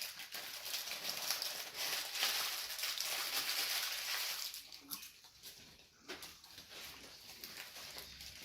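Close-miked eating sounds: chewing and mouth noises on a fast-food sandwich. They are loudest and densest in the first half and grow softer after about four and a half seconds.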